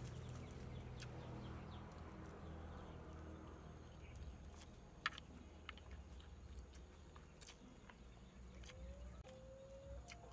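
Faint eating sounds: a person chewing noodles and turtle curry, with scattered light clicks of chopsticks against the turtle-shell bowl, one sharper click about five seconds in.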